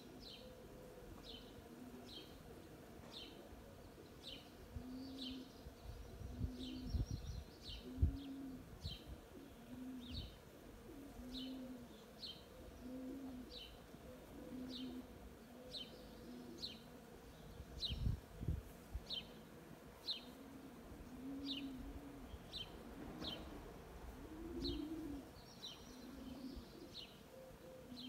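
A dove cooing, a long series of short low coos about one every second and a half, while a small songbird repeats a single high chirp roughly every 0.7 s. A few dull low thumps come around 7 to 8 seconds in and again around 18 seconds.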